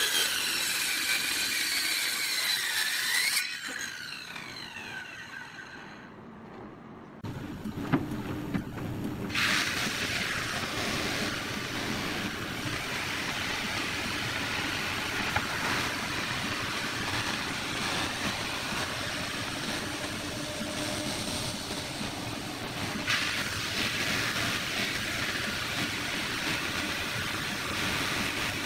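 A handheld circular saw cutting through a long wooden plank, its whine falling in pitch as the cut ends and the blade spins down. About seven seconds in, a wide belt sander starts running steadily as a board is fed through, with a higher hiss joining a couple of seconds later.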